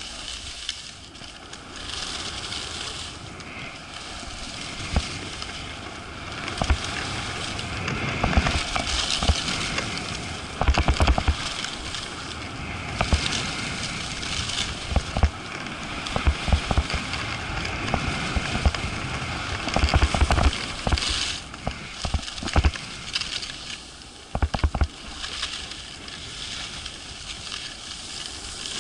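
Skis hissing and scraping over packed piste snow on a downhill run, with wind rushing over the microphone and several low thuds of wind buffeting scattered through.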